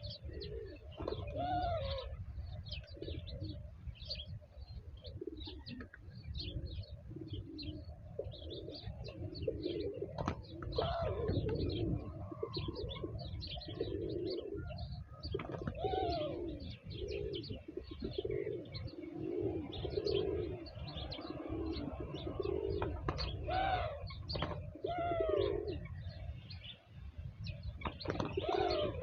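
Pigeons cooing over and over, with small birds chirping in quick high notes, over a steady low rumble.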